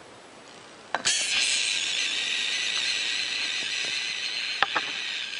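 Reptile hissing: one long, loud, steady hiss that starts suddenly about a second in and holds for over four seconds, with a couple of faint clicks near the end.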